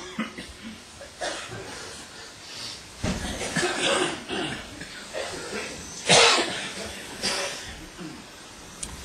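Several coughs from people in a seated audience, the loudest about six seconds in, with some low voices between them.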